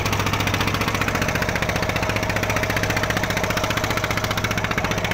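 A boat engine running steadily close by, with a rapid, even knocking beat and a low hum.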